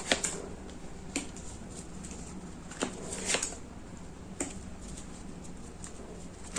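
Tarot cards being handled and laid out on a table: five or six short, soft slaps and rustles, spaced irregularly about a second apart.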